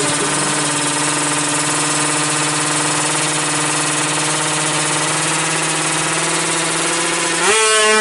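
Two-stroke Kawasaki Ninja 155cc drag bike engine held at steady high revs on the start line. About seven and a half seconds in, the pitch jumps sharply upward and the engine gets louder as the bike launches off the line.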